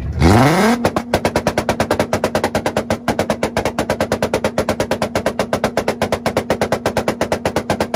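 Volkswagen's engine revved up hard and then held on a two-step launch limiter: a steady high engine note chopped by rapid, even popping from the ignition cut.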